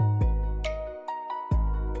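Soft instrumental background music: a melody of notes struck about every half second, each fading away, over deep bass notes.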